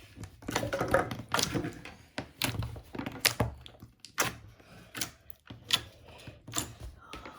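Hand-squeezed slime and its plastic tub making irregular sharp clicks and small pops, about a dozen spread unevenly.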